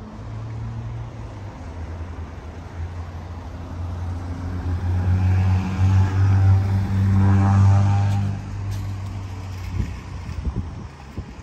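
A car driving past close by: its engine hum swells to its loudest a little past the middle, then fades.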